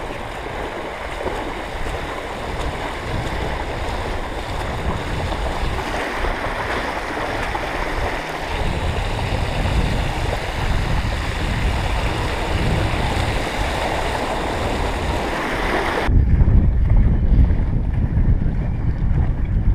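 Bicycle wheels ploughing through shallow floodwater: a steady rushing hiss of spray and splashing, with wind on the microphone. About 16 s in it cuts off abruptly to a heavy low rumble of wind on the microphone.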